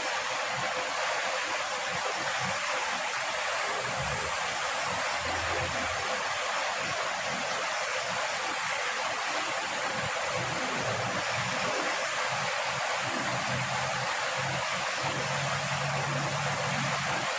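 Steady rush of flowing river water, an even, unbroken noise.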